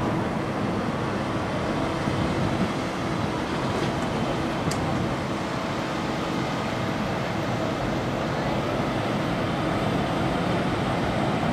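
Steady vehicle engine and traffic rumble with a faint steady hum. There is a single brief high tick about five seconds in.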